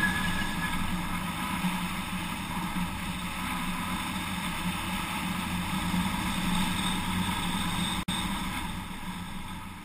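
Airflow rushing past the onboard camera of a quarter-scale Bergfalke IV model glider in flight: a steady rushing noise with a constant low hum. It drops out briefly about eight seconds in, then fades out near the end.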